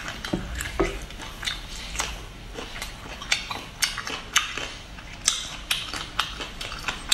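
Close-up mouth sounds of someone chewing a braised octopus tentacle: irregular sharp smacks and clicks of lips and teeth, a few a second.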